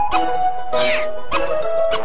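A looping tune with steady notes and a clicking beat about every 0.6 s, with a high squeak sound effect that slides down in pitch about a second in.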